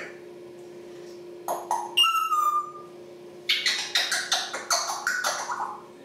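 African grey parrot calling: a short call, then a whistle falling slightly in pitch, then a fast string of sharp clicks and squawks lasting about two seconds. A steady low hum runs underneath.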